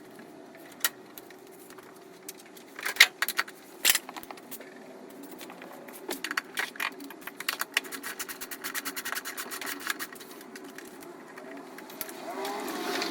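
Metal hand tools and parts clinking and clicking during work in a car's engine bay. Scattered sharp clinks come about three to four seconds in, then a run of rapid light clicks.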